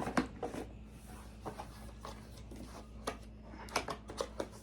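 Handling noise as an unboxed item is put back into its packaging: scattered clicks, taps and rustles, with a cluster of sharper clicks near the end.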